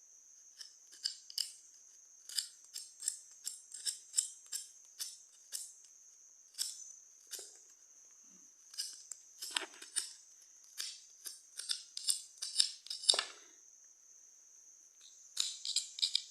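Cuttlebone being scraped into powder by hand: short, irregular rasping strokes, one or two a second, a few of them louder and fuller. A steady high whine runs faintly underneath.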